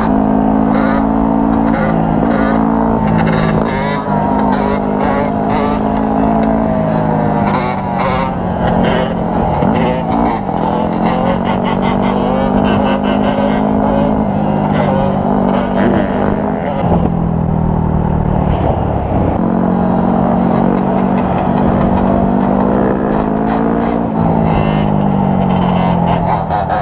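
Dirt bike engines running hard, their pitch climbing and dropping again and again as the riders work the throttle and shift.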